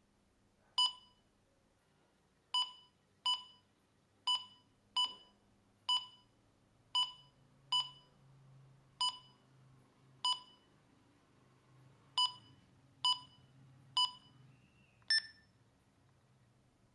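Key-press beeps from a CD-R King toy walkie-talkie as its buttons are pressed to step the channel: about fourteen short beeps at uneven intervals. The last beep is higher-pitched.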